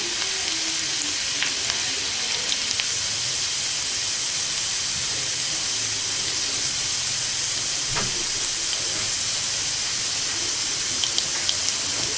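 Chopped garlic cloves frying in hot mustard oil in a pan: a steady sizzling hiss with a few small pops, as the garlic cooks toward golden.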